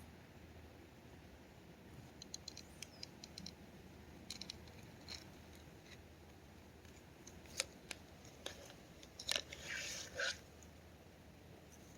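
Scattered light clicks and scratchy ticks, then a brief burst of louder scratching and crinkling about nine to ten seconds in.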